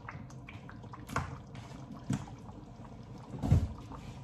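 A pot of curry simmering with a soft, steady bubbling, with two light knocks and a louder thump about three and a half seconds in.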